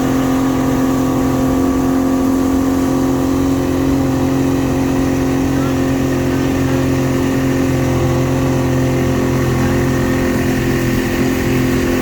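An engine running at a constant speed: a steady hum that neither rises nor falls.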